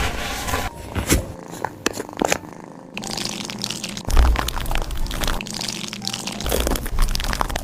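Cat nail trimming: rustling, crinkly handling noise with sharp clicks of the nail clippers scattered through it, and a few low thumps.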